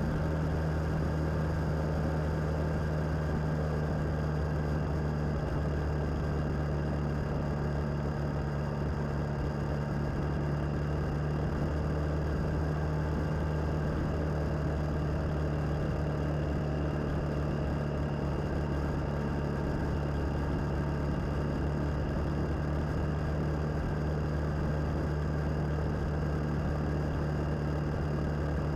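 Suzuki DL650 V-Strom's V-twin engine running at steady revs while cruising, its even drone mixed with road and wind noise.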